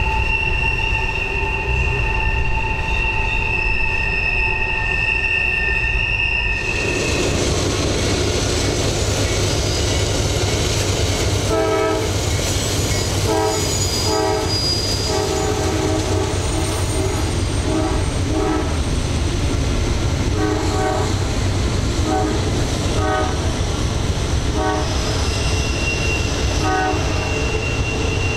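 Loaded coal hopper train rolling through a tight curve, its wheel flanges squealing in several steady high tones over a heavy low rumble. About six and a half seconds in, the sound changes abruptly to a diesel-hauled intermodal freight passing with a low rumble and a string of short multi-tone squeals or toots.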